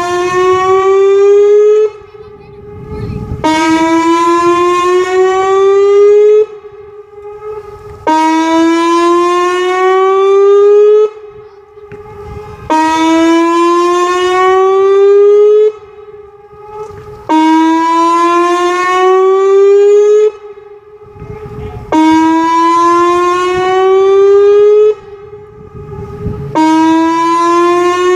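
Whelen WPS 2810 electronic outdoor warning siren sounding a loud test signal. It repeats a blast of about three seconds that rises slightly in pitch, then a short gap, about once every four and a half seconds.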